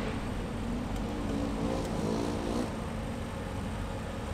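Off-road race buggy engines running, one revving up with a rising pitch for about a second and a half, then easing off.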